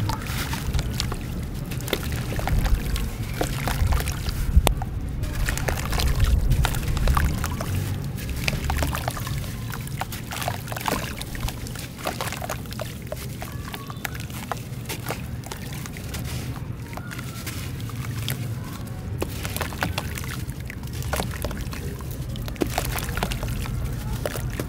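Soft, dusty cement-sand lumps crumbled by hand, crackling continuously, with the grains and crumbs pouring down into a tub of water.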